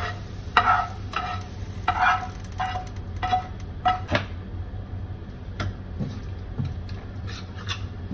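Metal spatula scraping and knocking fried onion tempering out of a small frying pan into a stainless steel pot: a run of sharp metallic clinks, about two a second, for the first four seconds. After that a spoon stirs the batter more quietly, over a steady low hum from the kitchen range hood fan.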